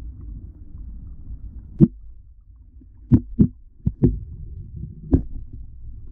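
Underwater sound heard through a GoPro's waterproof housing: a steady, muffled low rumble of moving water, with about half a dozen sharp knocks against the housing, two of them close together a little past three seconds in.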